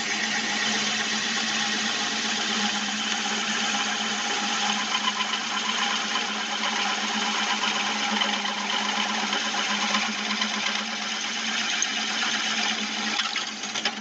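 Drilling machine running under load, boring a hole through a metal bracket strip: a steady motor hum under a harsh, dense cutting noise. It stops just before the end.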